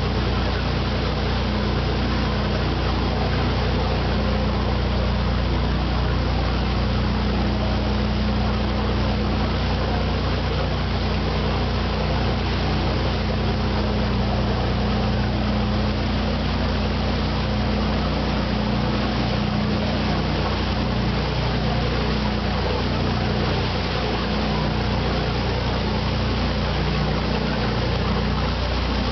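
Tour boat under way: its engine runs with a steady low drone while the churning wake behind the stern rushes and hisses.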